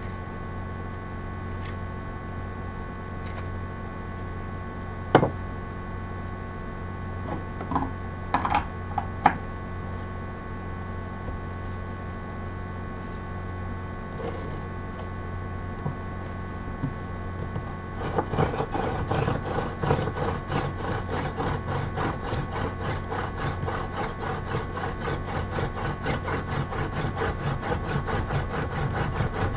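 Solid maple hand-drill spindle spun back and forth between the palms, grinding into a wooden hearth board for a friction fire: a rhythmic rubbing of about two strokes a second that starts about two-thirds of the way in. Before it, a steady low hum with a few sharp knocks.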